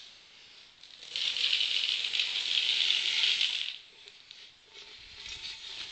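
Dry corn kernels rattling against a metal beer can used as a feed scoop, one continuous rattle starting about a second in and lasting about two and a half seconds.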